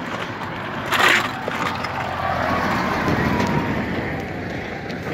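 A large truck driving past close by: engine and tyre rumble that swells as it goes by, with a faint falling whine. A short, louder rush of noise comes about a second in.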